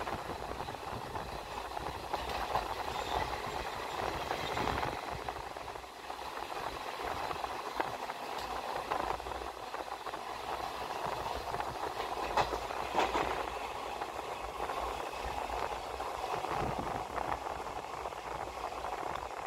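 Indian Railways express passenger train running, heard from onboard: a steady rumble and rattle of the coaches, with a few sharp clicks, the loudest a pair about two-thirds of the way through.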